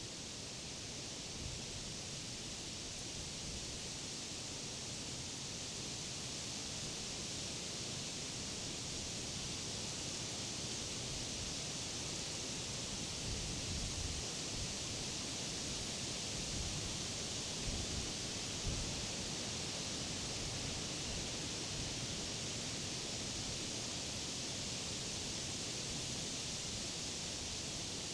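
Wind rustling the leaves of tall trees and grass, a steady hiss that swells slightly, with low gusts buffeting about halfway through.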